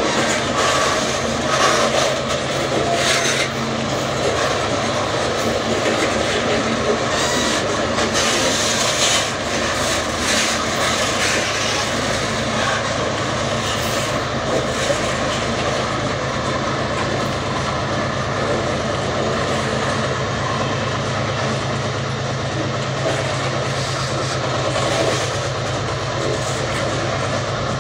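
Loaded iron-ore wagons of a heavy freight train rolling slowly past on an upgrade: a steady rumble with wheel clacks over the rail joints, more frequent in the first half. Under it runs a steady low diesel hum that grows in the second half as the rear helper locomotive working at full throttle draws near.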